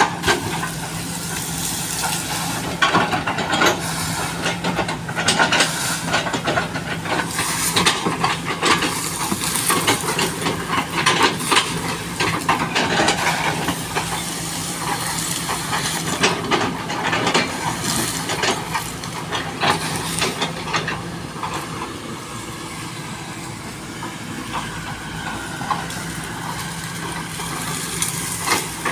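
SANY SY215C hydraulic excavator running under load, its engine a steady hum, while the bucket crunches and splits felled oil palm trunks and fronds with many sharp cracks and knocks. The cracking is busiest in the first two-thirds and thins out near the end, leaving mostly the engine.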